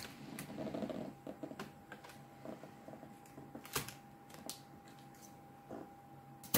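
Light clicks and a short plastic rustle as a laptop keyboard is unhooked from its motherboard connector and lifted out of the palmrest, with one sharper click a little before the middle. A faint steady tone sounds underneath.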